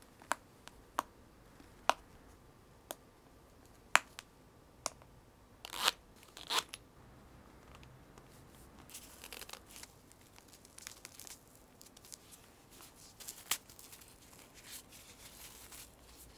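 Handling of a vinyl fashion doll and its costume: a series of sharp clicks and taps, two short scraping rustles about six seconds in, then soft fabric rustling as a small white glove is pulled onto the doll's hand.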